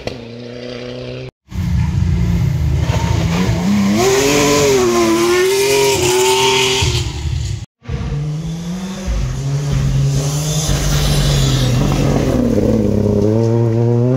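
Rally cars at full throttle on a gravel stage, engines revving up and dropping back through gear changes as they come on and pass. The sound cuts off abruptly twice, about a second and a half in and about halfway through.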